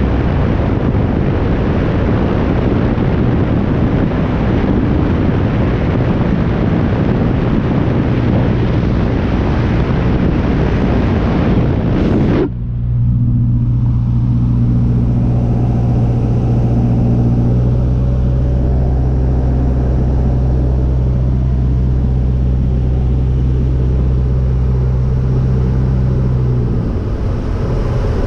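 Cessna 150's Continental O-200 four-cylinder engine and propeller running on approach, buried under heavy wind rush. About halfway through the rush cuts off suddenly and a steadier engine drone with a low hum takes over, as heard inside the cabin. Near the end the low hum drops away.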